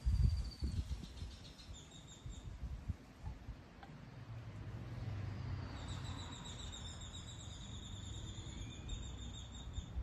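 Wind rumbling and buffeting on the microphone, strongest in the first second and coming in gusts, with a high pulsing trill in the background, briefly near the start and steadily through the second half.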